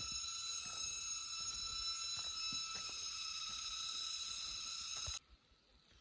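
Footsteps on a forest trail, a soft step about every half second, under a steady high-pitched whine made of several tones that cuts off suddenly about five seconds in.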